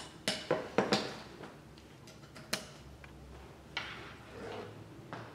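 Clicks and knocks of an aluminum DSLR shoulder rig's arms and joints being folded out and set by hand: four quick clicks in the first second, another at about two and a half seconds and one near four, then a soft rubbing sound.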